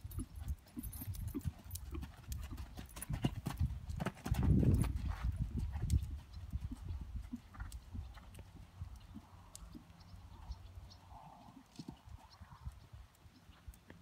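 Hoofbeats of a grey appendix gelding cantering on sand arena footing. There is a loud low rumble about four seconds in, and the beats grow quieter and sparser over the second half.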